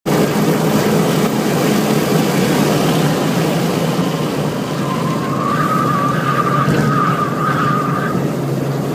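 Honda Civic 1.4's four-cylinder engine running hard at speed, heard from inside the cabin over road and wind noise. About halfway through, a wavering high squeal joins as the car brakes for a corner: the tyres squealing.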